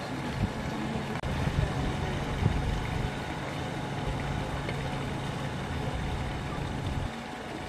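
An engine running steadily with a low hum, cutting off about seven seconds in.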